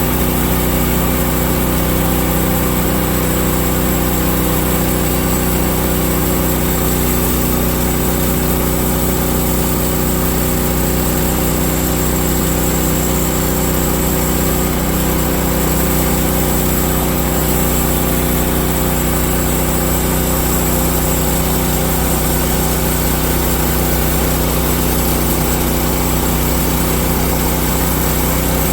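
Engine of a Woodland Mills HM130Max bandsaw sawmill running steadily at constant speed, with no change in pitch or level.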